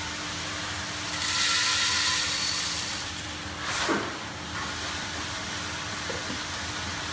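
Roasted coffee beans poured from a paper bag into an espresso grinder's hopper: a loud rushing rattle for about two seconds, then a short sharp sound about four seconds in as the bag and hopper are handled. A faint steady hum runs underneath.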